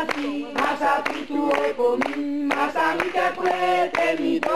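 A crowd of people singing together unaccompanied, women's and children's voices among them, in long held notes.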